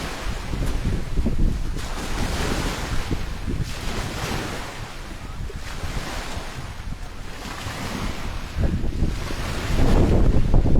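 Strong gusty wind, a hiss that swells and fades about every two seconds, with wind buffeting the microphone in a low rumble that grows heavier near the end.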